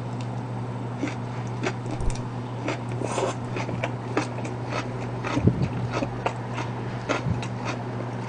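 A person chewing crisp vegetables close to the microphone: a string of irregular crunching clicks, over a steady low hum.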